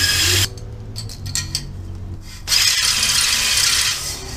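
A cordless drill spins a cylinder hone in the bore of a small-block Chevy 350 engine block, running on a battery that is getting low. Two loud hisses of an aerosol spray: one cuts off about half a second in, the other runs from about two and a half seconds to about four.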